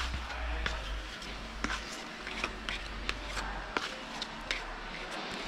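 Plastic spreader scraping and tapping while body filler is mixed by hand: irregular light scrapes and clicks over a low hum.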